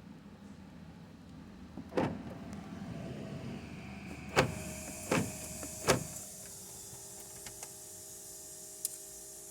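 Four sharp clicks over a faint steady electrical hum inside a vehicle: one about two seconds in, then three in quick succession between about four and six seconds in. A faint steady tone joins the hum after that.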